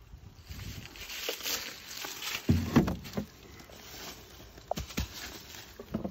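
Wooden beehive cover being lifted off and handled. There is a scraping rub, then a cluster of dull wooden knocks a little under halfway through, the loudest part. A few sharp clicks follow near the end.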